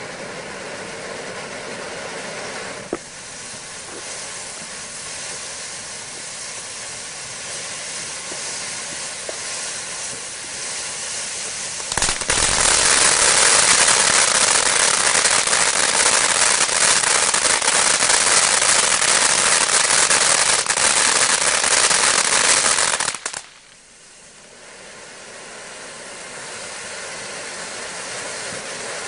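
Ground fountain firework spraying sparks with a steady hiss. About twelve seconds in it turns much louder, a dense crackling spray that lasts some eleven seconds and cuts off suddenly, then it drops back to a quieter hiss that slowly builds again.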